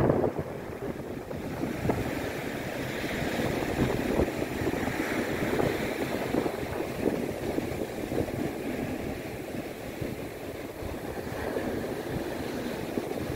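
Sea surf washing up and running back on a sandy beach, with wind buffeting the microphone in an uneven low rumble.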